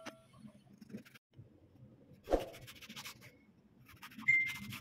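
Serrated kitchen knife sawing lengthwise through an eggplant on a wooden chopping board: soft scraping strokes in two short runs, with a light knock on the board a little over two seconds in.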